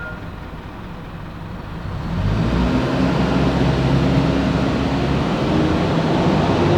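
Big diesel truck approaching along the street: a low rumble grows louder about two seconds in as the engine and tyre noise close in, then holds strong as it passes.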